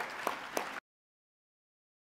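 Audience applauding, with single sharp claps about three a second standing out above the crowd's clapping; it cuts off abruptly less than a second in.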